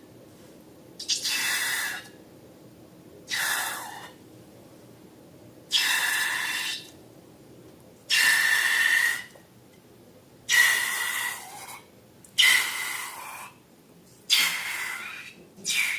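Air rushing out of balloons in seven separate hissing bursts, each about a second long with a squealing edge, roughly every two seconds.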